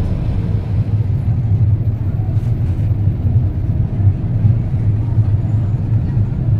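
River passenger boat's engine running with a steady low rumble.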